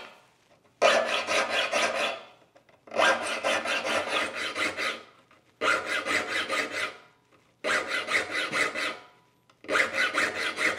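Steel saw file rasping across the teeth of a crosscut handsaw in the saw vise. It comes in five runs of several quick strokes each, with short pauses between as the file moves on to the next tooth.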